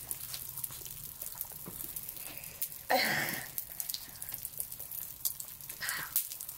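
Wet mouth sounds of children eating jello straws: close-up slurping, sucking and lip smacking, made up of many small clicks, with one louder slurp about three seconds in.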